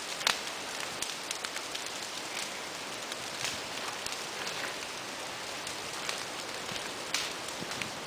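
Ground fire burning through dry leaf litter and undergrowth: a steady crackling hiss with frequent sharp pops.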